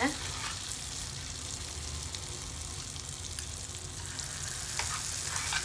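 Palmyra-fruit batter fritters frying in hot oil over a low flame: a steady sizzle.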